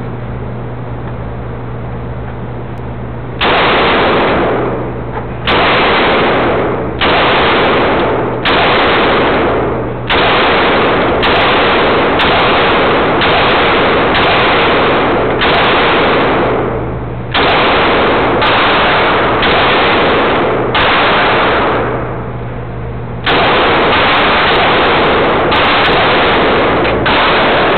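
Ruger P95 9mm semi-automatic pistol firing a string of about eighteen shots. The shots are spaced about one to two seconds apart, each followed by a long echoing tail. The first shot comes about three seconds in, and there is a short pause before the last four.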